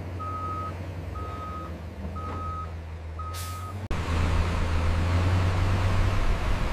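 A heavy construction vehicle's reversing alarm beeps four times, about once a second, over its steady diesel engine running. A short burst of hissing air comes with the last beep, and then the engine grows louder about four seconds in.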